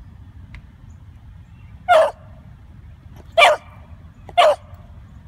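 Beagle puppy barking three times: one short bark about two seconds in, then two more a second or so apart.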